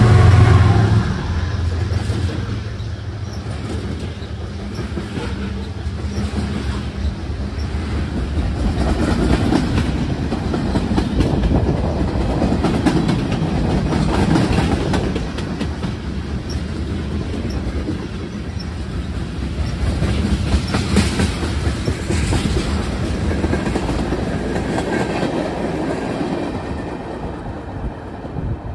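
Freight train passing close by. The trailing GE diesel locomotive's engine drone fades within the first second or so, then tank cars and flatcars roll past with a steady clickety-clack of wheels over the rail joints. The sound falls away near the end as the train recedes.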